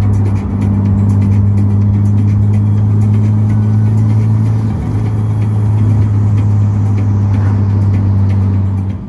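Nissan Skyline R33 cruising, a steady low engine and road drone heard from inside the cabin, with music playing over it.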